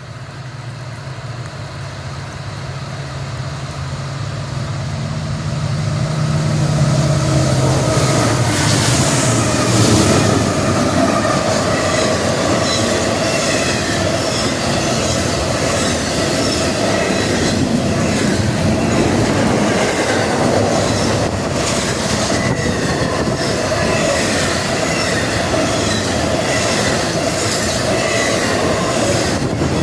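Freight train passing behind NS 8101, a GE ES44AC diesel-electric locomotive. The locomotive's low engine hum grows louder over the first several seconds. From about eight seconds in, the cars roll by with steady rumble, high wheel squeal and occasional clicks from the rail joints.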